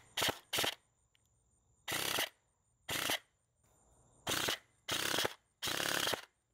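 High rate-of-fire airsoft electric gun firing seven short full-auto bursts, each a rapid stream of shots lasting under half a second; the first two are very brief. Crickets chirp faintly between the bursts.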